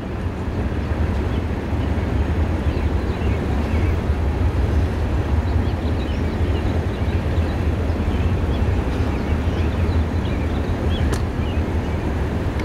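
Steady low outdoor rumble with faint bird chirps over it, and one short knock near the end as a car door is shut.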